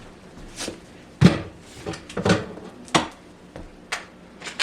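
A series of scattered knocks and clanks, the loudest a little over a second in, as the clamp holding a newly mounted undermount sink is taken off from under the counter.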